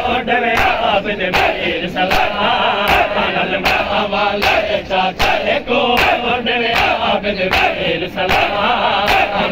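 A crowd of men chanting in unison while doing matam: sharp, rhythmic slaps of hands on bare chests, about one every three-quarters of a second, marking the beat of the chant.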